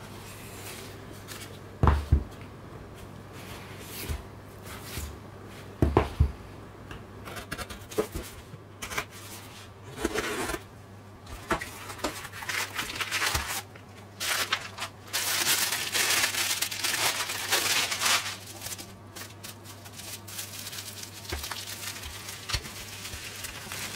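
Cardboard shipping box being cut open with a box cutter and handled, with two sharp knocks early on, then scraping and tearing of cardboard. In the second half, tissue paper crinkles loudly for a few seconds as it is unwrapped, over a steady low hum.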